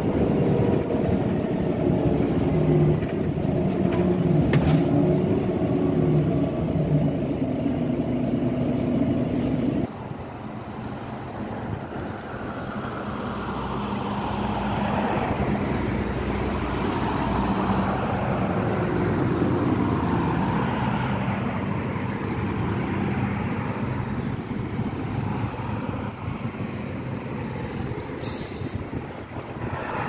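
A Volvo B9TL double-decker's six-cylinder diesel heard first from inside the moving bus, running steadily with several humming tones. It then switches abruptly to the bus heard from the kerb, idling at a stop with a steady low hum while passing traffic swells and fades.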